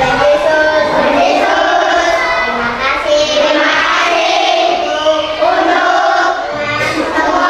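A class of young schoolchildren praying aloud together in unison, in long, sung notes.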